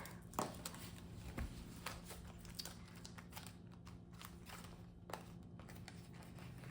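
Faint rustling and a few light clicks and taps from a cash budgeting binder and its envelopes and pages being handled, over a steady low hum.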